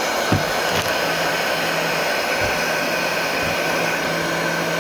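Electric heat gun running steadily, its fan blowing hot air with an even hum.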